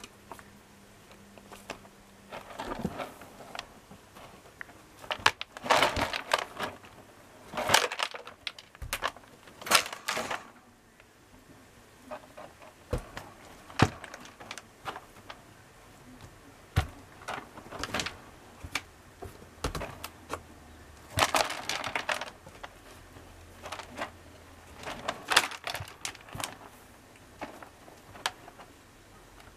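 A kitten scratching and digging in a litter tray of pellet litter: irregular bursts of crunching and rustling, in loud clusters and scattered single scrapes.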